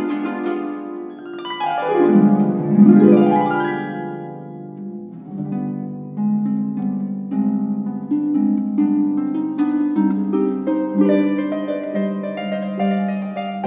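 Concert pedal harp being played: a quick glissando sweeping down and back up the strings, then plucked notes in a flamenco-like pattern over a repeated low bass note.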